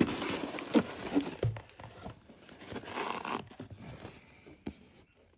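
Cardboard shipping box being opened and handled by hand: flaps scraping and rustling with a few sharp knocks, dying down near the end.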